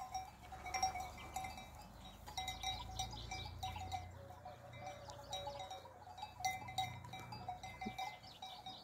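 Bells on grazing sheep clinking faintly and irregularly, over a low rumble.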